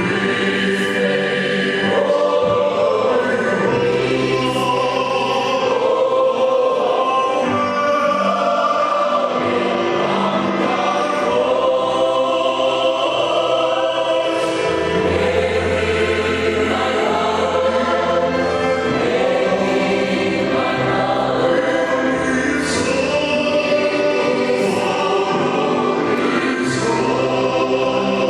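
High-school choir singing a song in several-part harmony, holding long chords that shift from one to the next.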